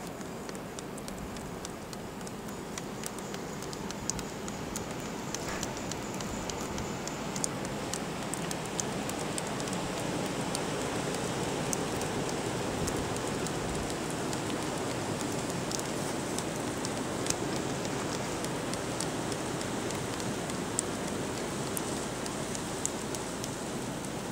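Blizzard wind blowing in a steady hiss that swells a little after the first few seconds, with many faint scattered ticks through it.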